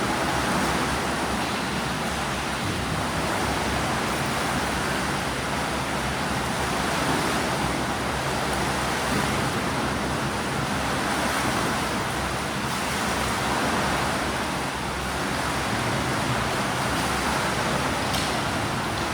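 Steady wash of noise from swimmers splashing in a pool, blended with the hall's echo.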